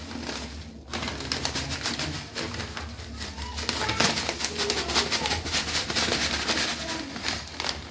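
Dry roasted vermicelli poured from a crinkling plastic packet onto a stainless-steel plate: a dense, continuous patter of tiny ticks and rustles as the thin strands hit the metal.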